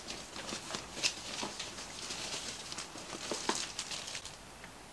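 Plastic packaging rustling and crinkling as it is pulled from a soft fabric kit case, with scattered light clicks and knocks.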